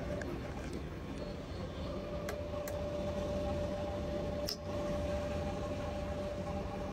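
Steady hum of a Boeing 737 cockpit's air-conditioning and equipment-cooling fans, with a faint steady tone. A few sharp clicks of overhead-panel switches being flipped come about two and a half seconds in and again about four and a half seconds in.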